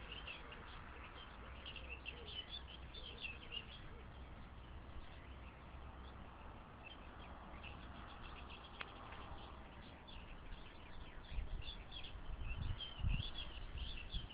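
Small wild birds chirping and singing on and off over a faint steady hiss, with a few short low rumbles near the end.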